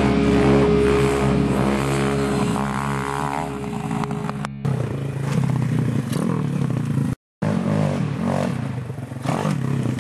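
Heavy rock music that cuts off abruptly about halfway through, followed by a small pit bike's engine revving up and down as it climbs a steep dirt track, with a brief dropout in the sound.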